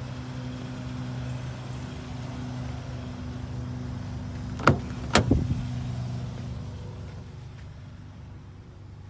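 A 2021 Kia Sorento's door being opened: two sharp clicks about half a second apart, from the handle being pulled and the latch releasing. Under them a steady low hum fades away toward the end.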